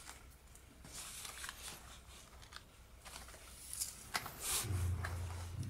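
Footsteps scuffing on a gritty concrete path, irregular and uneven. A steady low hum comes in about two thirds of the way through.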